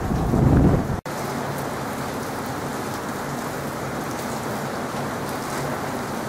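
Steady rain falling, with a low rumble of thunder in the first second that cuts off abruptly; after that only the even hiss of rain.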